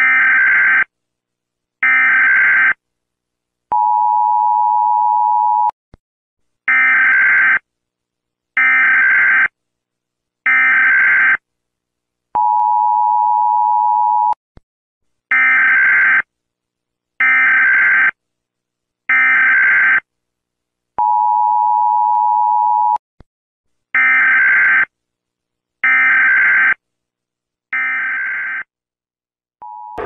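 US Emergency Alert System alarm: three rasping data bursts of the SAME header, each about a second long, then about two seconds of the steady two-tone attention signal. The cycle repeats four times, the last tone cut short near the end.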